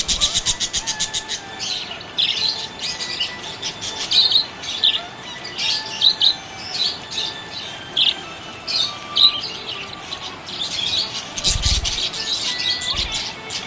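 Budgerigar chirping: a fast run of rapid chirps at the start, then scattered short, high chirps and warbles.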